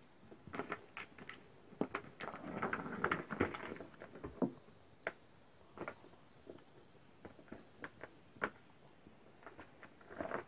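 Kittens batting at a Catit Senses 2.0 Super Circuit plastic track toy: scattered plastic clicks and taps, with a denser burst of rattling about two to four seconds in as the ball inside the track is knocked along.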